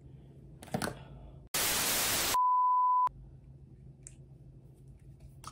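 An edited-in sound effect: a sudden burst of loud white-noise static for about a second, followed straight away by a single steady high-pitched beep that cuts off sharply.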